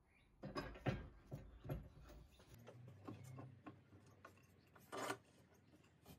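A steel bar clamp being laid across a glued-up hardwood panel and its jaws set: a run of metal-and-wood knocks and clicks in the first two seconds, softer handling after, and a louder scrape about five seconds in.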